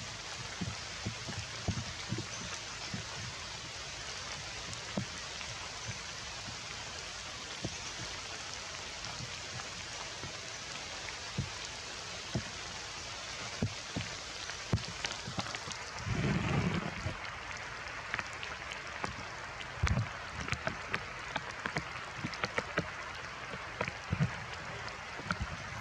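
Steady heavy rain pouring down, with scattered sharp taps of drops hitting close surfaces and a brief low rumble about two-thirds of the way in.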